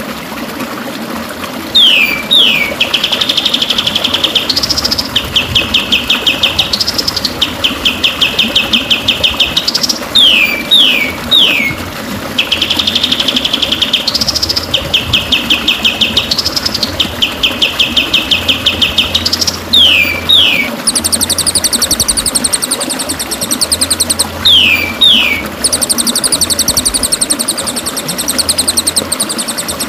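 Recorded songbird song played as masteran for white-rumped shamas. Pairs of quick downward-sweeping whistles alternate with long, fast trills that rise at the end, repeating at even spacing. From about two-thirds in, a higher, fast buzzy trill joins. A steady low background noise runs underneath.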